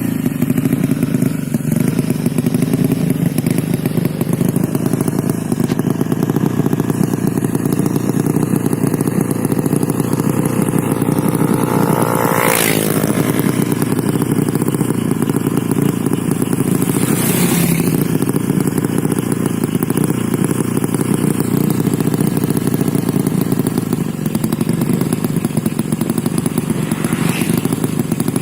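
Motorcycle engine of a Yamaha Vega tuned up to 200 cc, running steadily at idle while it is being set up. It is given three quick throttle blips, about 12, 17 and 27 seconds in.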